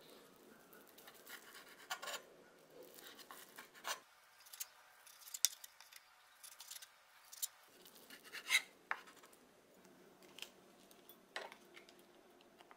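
Kitchen knife slicing through a thin omelette on a wooden cutting board: irregular faint taps and scrapes as the blade meets the board, about ten distinct clicks.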